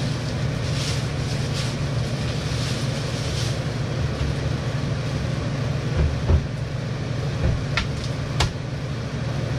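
Plastic bag crinkling and rustling as it is pulled off a portable cassette toilet, over a steady low hum. A dull knock and two sharp plastic clicks come in the second half as the toilet is handled.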